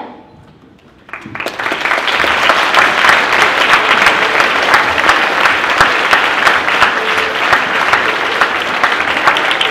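Audience applauding: a brief hush, then clapping breaks out about a second in and quickly builds to steady, dense applause.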